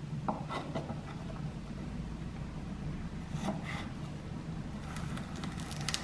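Chef's knife slicing the sides of a cucumber strip on a wooden chopping board: a few faint, light cuts and taps over a steady low hum.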